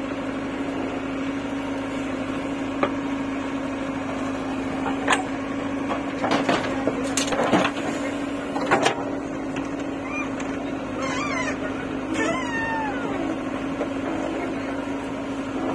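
JCB 3DX backhoe loader's diesel engine running steadily while the backhoe digs into a soil heap, with a series of knocks and clunks from the bucket in the middle. A few short, high, wavering squeals follow near the middle-to-late part.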